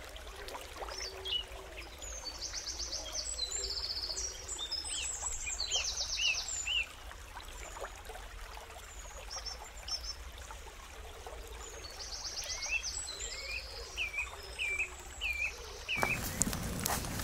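Wild birds singing: fast buzzy trills alternating with runs of short, hooked whistled notes, over a steady background hiss. About a second before the end, a louder, broader noise starts abruptly.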